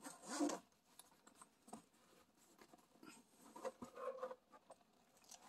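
Zipper on a fabric-covered hard-shell kalimba case being pulled open around its edge: faint, uneven scratching and rustling.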